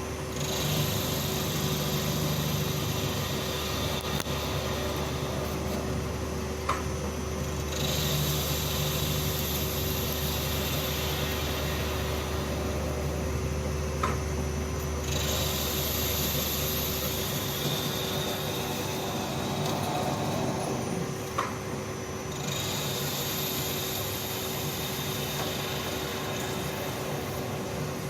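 CNC lathe making repeated facing cuts: a cutting hiss that starts afresh about every seven seconds, each pass opened by a short click, over the machine's steady hum.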